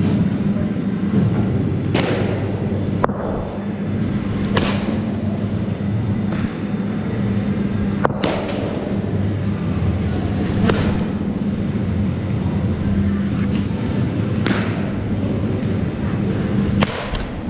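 Cricket balls being hit by bats and thudding into netting and the floor in an indoor net hall: about ten sharp, echoing cracks and thuds at irregular intervals. Under them runs a steady low hum.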